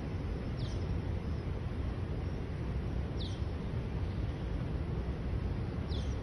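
A bird giving three short, high, downward-sweeping calls, evenly spaced about two and a half seconds apart, over a steady low background rumble.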